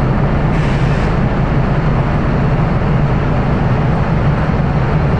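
A DGS dynamic track stabiliser working its way along the rails, its machinery giving off a loud, steady low hum.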